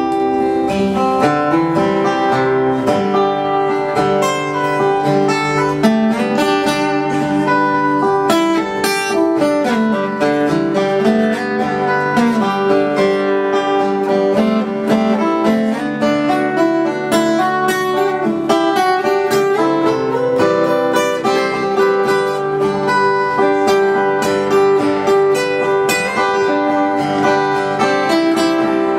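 Live band playing an instrumental break in a country-folk ballad: strummed acoustic guitar under a quick picked lead line on plucked strings, with no singing.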